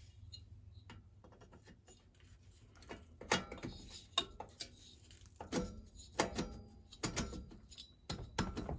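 Light metal clicks and knocks, irregular and starting about three seconds in, as a billet aluminium cylinder head is worked down over the studs of a two-stroke bicycle engine, past the exhaust pipe.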